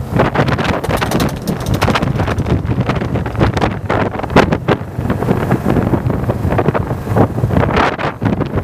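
Wind buffeting the microphone of a camera mounted on a moving Yamaha motorcycle, in irregular gusts over the low steady sound of the bike's engine as it rides slowly at around 30 km/h.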